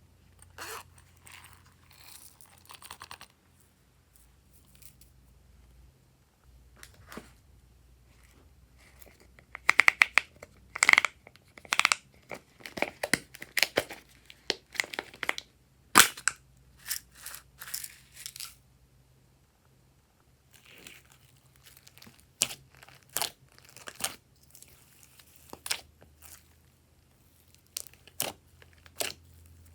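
Glossy slime being squeezed and stretched by hand, with irregular sharp clicks and pops coming in runs and a few short squelches about ten seconds in.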